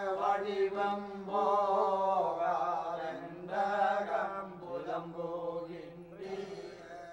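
Chanting: a voice singing a verse on long, sliding notes over a steady low drone, fading away near the end.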